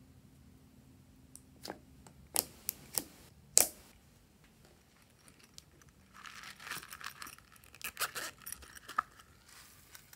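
Slime and a small plastic container handled by hand: a few sharp clicks and pops, the loudest about three and a half seconds in, then from about six seconds a few seconds of crinkly plastic rustling dotted with small clicks.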